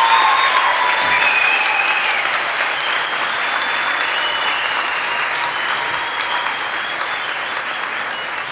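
Theatre audience applauding, the clapping slowly dying down.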